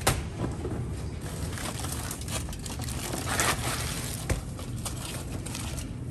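Aluminium foil crinkling and crumpling as it is peeled off a wrapped smoked brisket, with a knock as the bundle is set down on a plastic cutting board at the start. The crinkling is loudest about three and a half seconds in.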